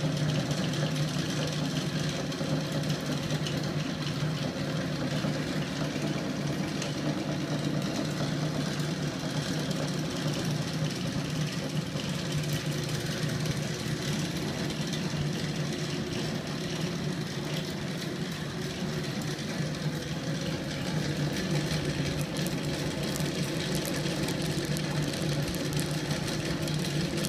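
Homemade magnet-crankshaft engine prototype running steadily: a small electric motor spinning a heavy steel flywheel and crank in an aluminium frame, giving a constant hum with a fast mechanical rattle.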